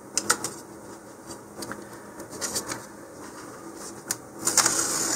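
Scattered light clicks and taps of handling on a workbench, then a rustle near the end as a small paper cutout is picked up off a cutting mat.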